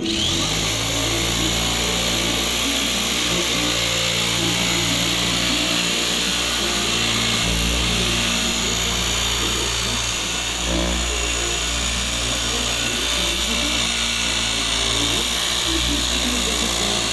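Motor-driven sheet-metal cutting machine starting abruptly and running steadily, a loud even hiss over a low motor hum, while a metal sheet is fed through it.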